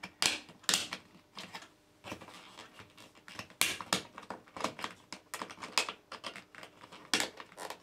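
Irregular clicks, taps and scrapes of a white plastic dry-lining back box being worked in its plasterboard hole, its fixing tabs pushed in and pulled forward so they grip the board.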